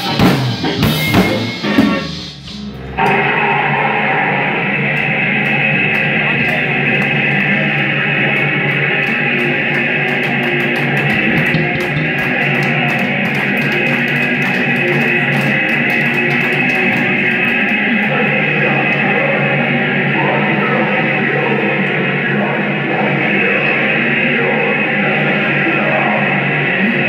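A live rock band playing loud. A few heavy drum hits open it, with a short drop-off, and from about three seconds in an electric guitar holds a dense, steady wall of sound.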